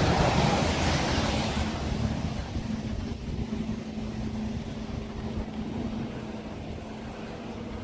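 Wind rumbling on the microphone of a moving e-bike, with a steady low hum. A louder rushing noise at the start fades away over the first two seconds.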